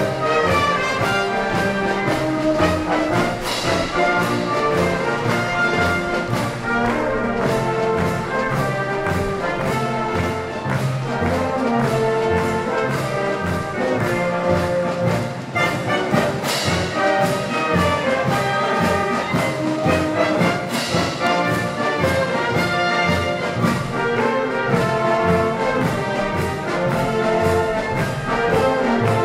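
Wind band (Blasmusik) playing: trumpets, trombones, tubas and saxophones in full chords over a bass drum keeping a steady beat, with a few bright crashes along the way.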